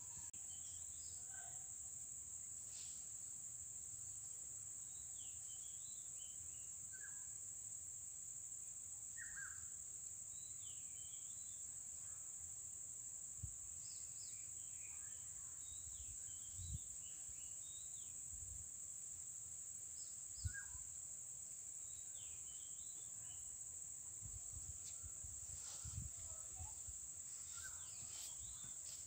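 Insects chirring in one steady, high drone, with scattered short bird chirps and a few soft low thumps.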